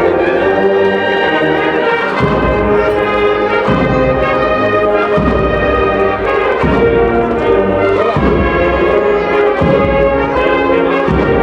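A Spanish Holy Week agrupación musical playing a processional march: a brass section of trumpets, cornets and trombones carrying the tune, with a bass drum striking about every one and a half seconds.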